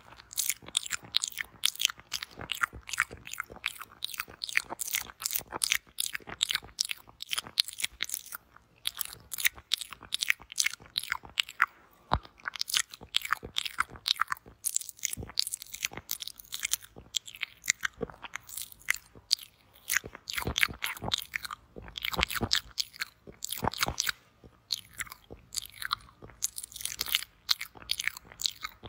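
Close-miked ASMR mouth sounds: quick wet clicks and sucking noises in a rapid, uneven stream, broken by a few short pauses.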